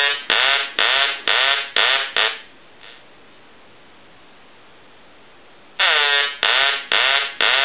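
Duck telephone's quacking ringer ringing on an incoming ring from the test set. It gives a run of about five quacks, roughly two a second, each dropping in pitch at its start. After a pause of about three seconds a second run of quacks begins, in the ring cadence. The quacking shows the ringer works after the repair.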